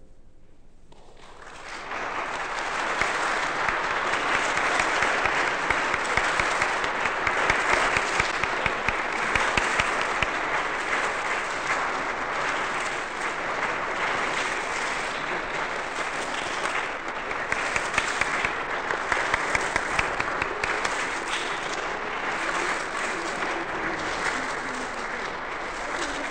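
Audience applause, rising about a second and a half in and then holding steady.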